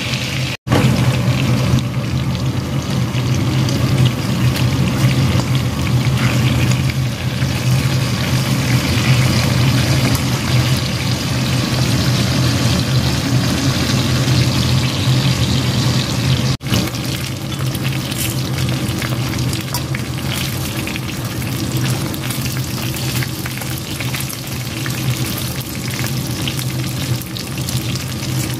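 Chicken frying in butter in a non-stick wok: a steady sizzle with fine crackling, over a steady low hum. The sound drops out briefly twice, about half a second in and again near the middle.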